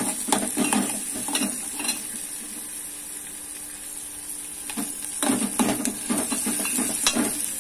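A steel spoon stirs and scrapes around an aluminium pot as a tempering of green chilies, curry leaves and garlic fries in hot oil. The scraping is sparse at first, eases off in the middle, then turns busy for the last couple of seconds.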